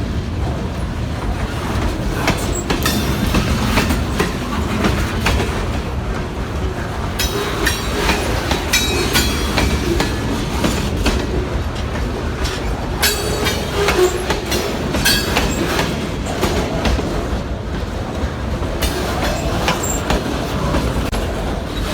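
A Kiamichi Railroad freight train's cars rolling past with a continuous rumble. The steel wheels clatter irregularly over the rail joints, with a few brief high wheel squeals in the middle.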